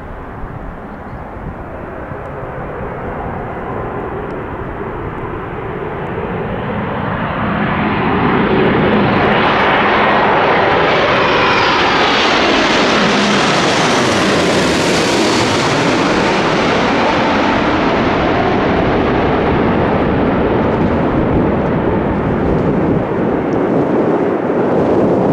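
KLM Boeing 787-10 jet airliner on final approach, its engine and airframe noise swelling as it nears. It peaks in a hissing, whooshing roar with a phasing sweep as it passes overhead about halfway through, then settles into a steady deep rumble as it flies on toward the runway.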